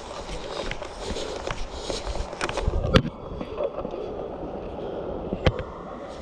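Footsteps and rustling of clothing and gear as a player moves through grass and brush, with two sharp clicks about three seconds and five and a half seconds in.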